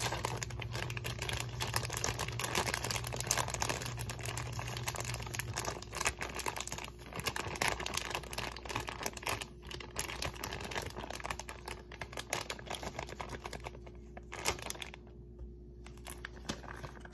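Plastic bag of steamed riced vegetables crinkling as it is squeezed and shaken to empty it, a dense run of crackles that thins out near the end.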